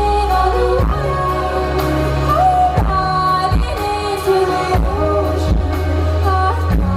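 Live pop concert: a woman singing over a band, with a heavy, steady bass and a drum hit about once a second. The audience recording sounds poor.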